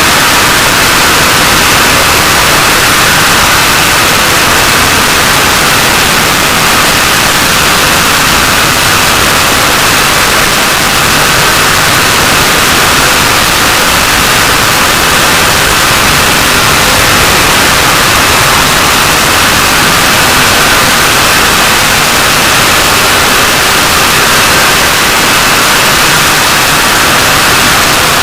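Very loud, steady, harsh static-like noise that fills every pitch, brightest in the upper middle, and never changes or breaks.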